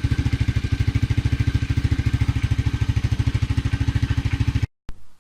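Motorcycle engine idling with an even, rapid pulse and a faint steady high whine above it, cutting off abruptly near the end.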